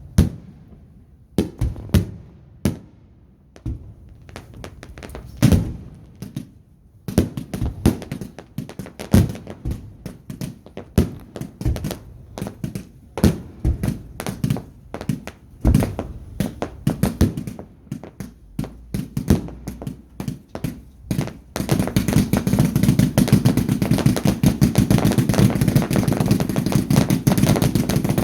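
Fireworks going off: separate sharp bangs and pops at irregular intervals, then about three-quarters of the way in a dense, continuous rapid crackling.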